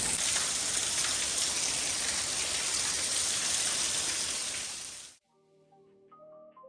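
Heavy rain pouring steadily in a sudden downpour, fading out about five seconds in and giving way to soft marimba-like music.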